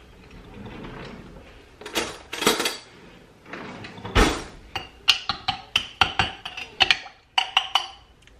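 A metal spoon clinking against a glass mason jar of vinaigrette as it is dipped in for a taste: about a dozen quick, ringing clinks in the second half, after a few duller knocks earlier.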